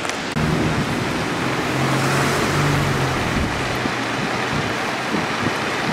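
Steady rush of strong storm wind, with a low vehicle engine hum underneath.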